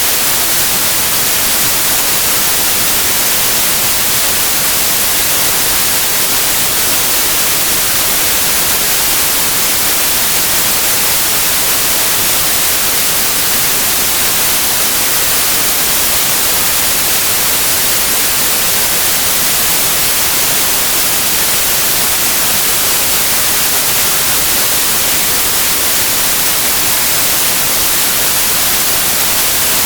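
Steady, unbroken white noise: an even hiss, brightest in the high register, played as a sleep sound for babies.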